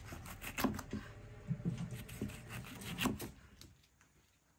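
Kitchen knife slicing a green bell pepper into rings on a wooden cutting board: several crisp crunches and knocks of the blade on the board, quieter near the end.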